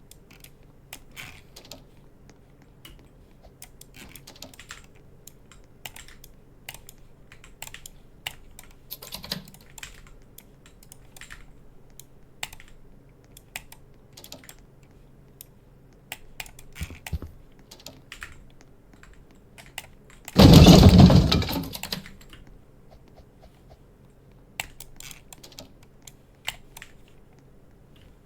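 Irregular, scattered clicks, a few a second and then sparser, like keys being tapped. About two-thirds of the way through, a loud burst of noise lasts about a second and a half.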